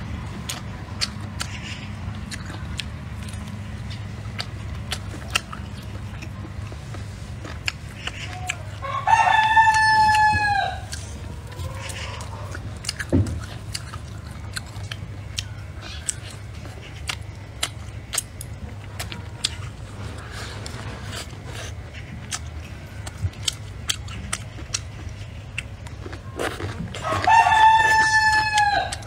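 A rooster crowing twice, each crow about a second and a half long and falling slightly at the end, the two about eighteen seconds apart. Between the crows, close-up eating sounds: gnawing and chewing on a braised pork bone, with many small wet clicks.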